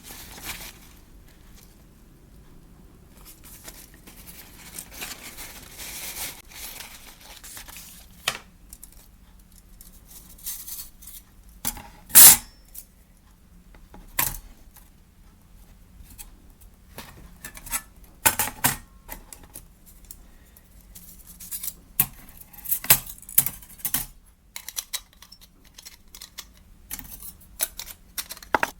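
Light metal parts of a small steel fire pit being handled: scattered clinks and rattles, with one louder clank about twelve seconds in.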